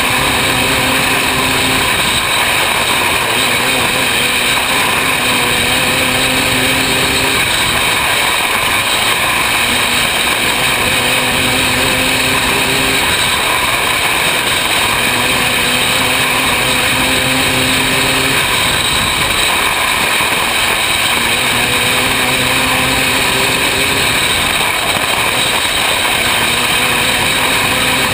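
Engine of a 500cc winged micro sprint car at racing speed, heard on board. The engine note rises and falls every few seconds as the throttle is worked around the oval, over a steady loud rush of wind and track noise.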